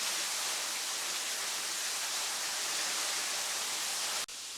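Small waterfall rushing, a steady hiss of falling water that cuts off suddenly near the end.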